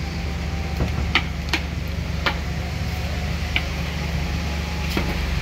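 Steady low rumble of street traffic, with about five short sharp clicks scattered through it.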